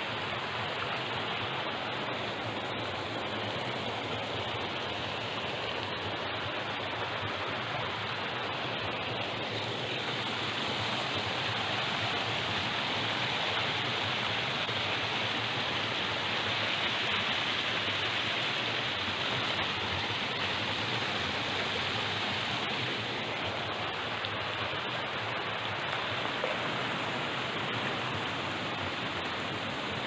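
Mountain stream rushing over boulders: a steady rush of water that swells a little in the middle.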